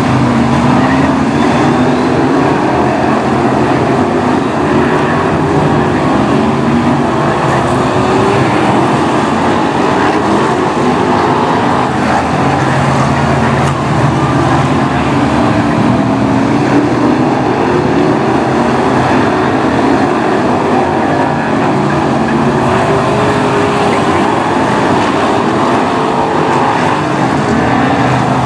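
A pack of BriSCA F1 stock cars' V8 engines racing round the oval, several engines at once at high revs, their pitch rising and falling as the cars brake for the bends and accelerate out of them.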